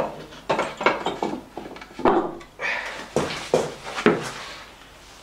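A run of irregular metal clanks and knocks, some ringing briefly, as the flywheel of a 1937 Lister D engine is worked off the crankshaft and handled. The knocks die away near the end.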